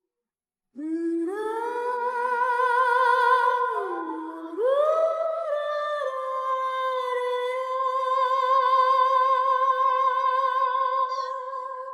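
A woman singing a cappella with no accompaniment, wordless long held notes with a wide vibrato. Her voice comes in about a second in with an upward scoop, dips and climbs again around the middle, then holds one long note.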